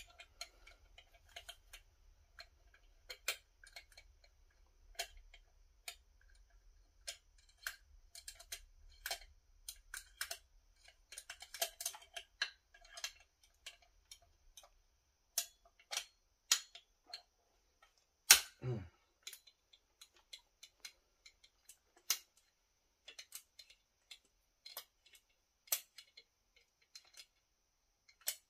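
Scattered small clicks and metallic taps of hand tools and fasteners as the muffler is taken off an Echo CS-4310SX chainsaw, with one louder knock about two-thirds of the way through.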